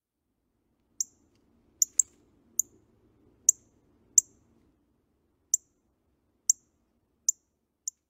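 Northern cardinal calls: about ten short, sharp, high chip notes, spaced unevenly a half second to a second apart.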